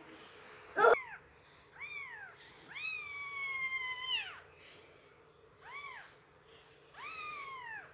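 Very young kitten, eyes only just opening, mewing: five thin, high cries, each rising then falling in pitch. The loudest is a short one about a second in, and the longest lasts nearly two seconds.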